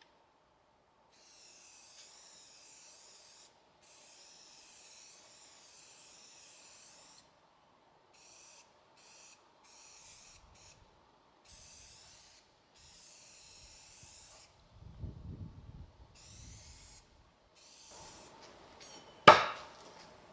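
Aerosol spray-paint can hissing in a series of bursts of one to three seconds, each starting and stopping cleanly. A sharp knock comes near the end.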